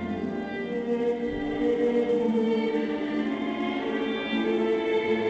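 Music with long held notes, played as the accompaniment to an acrobatics routine.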